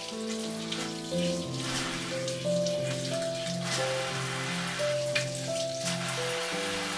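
Soft background music of held melodic notes over a steady patter of water.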